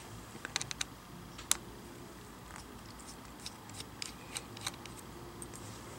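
A small PH1 Phillips screwdriver backing a tiny screw out of a laptop's LCD screen frame. It makes a scattering of faint, sharp clicks and ticks, a small cluster early and one stronger click about a second and a half in.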